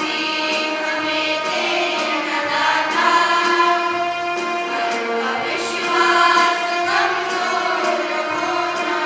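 Choir of young voices singing a song with musical accompaniment, a low bass note or beat repeating about every second and a half.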